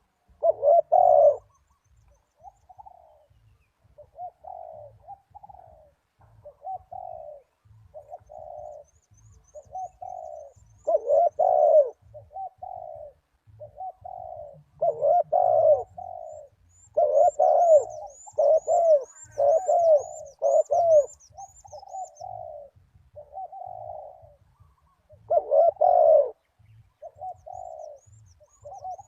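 Spotted doves cooing: repeated cooing phrases, some loud and some softer, with the loudest bursts about a second in, around 11 seconds, from 15 to 21 seconds, and around 26 seconds.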